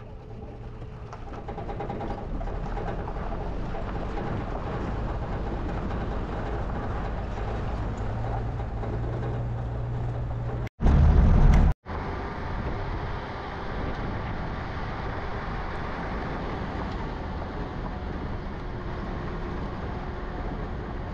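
Motor vehicle engine running with steady road noise, growing louder over the first couple of seconds. About halfway through, a much louder low rumble lasting about a second cuts in abruptly, with a brief dropout just before and after it.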